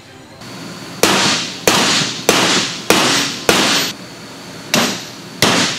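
Heavy hammer blows on a steel bearing driver, seating a bearing race in a rear differential case. Seven sharp metallic strikes, about one every 0.6 s, each ringing briefly, with a short pause after the fifth.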